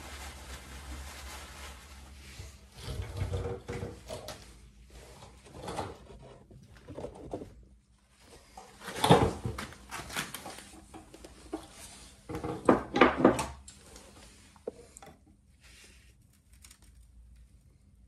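Hands and tools working at a motorcycle's rear brake caliper: scattered knocks, scrapes and clicks, the loudest about nine seconds in and a cluster around thirteen seconds.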